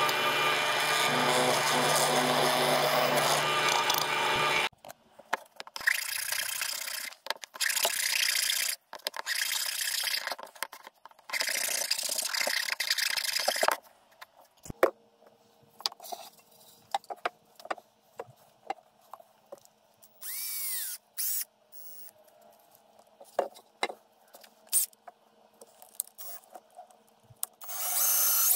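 A drill press boring a hole through a small block of wood, running steadily for about four and a half seconds and then stopping. Several separate bursts of rasping on wood follow, then scattered light clicks and knocks, and near the end a cordless drill runs loudly for about a second.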